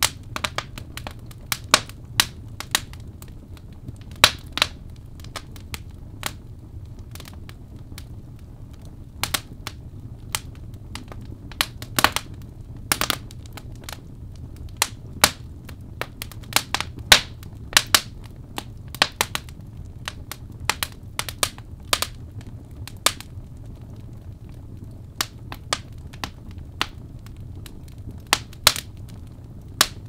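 Birch logs burning in a fireplace: irregular sharp crackles and pops, sometimes several in quick succession, over a low steady rumble of the flames.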